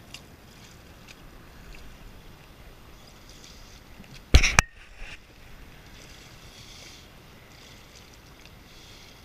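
Water lapping against a floating jet ski's hull, with a short, loud double bump about four and a half seconds in.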